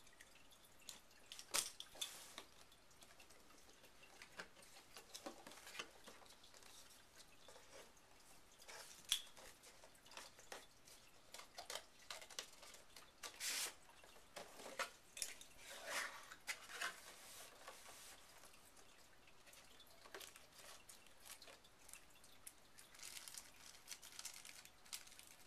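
Faint handling of a phone's retail box and packaging: scattered light taps, clicks and rustles, with a brief scraping slide about halfway through.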